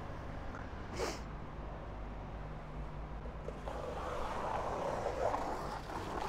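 Steady low hum of a large, reverberant warehouse, with one short sniff about a second in. About halfway through, a rustling, scuffing noise of handling comes in as workers begin on the shrink-wrapped crate.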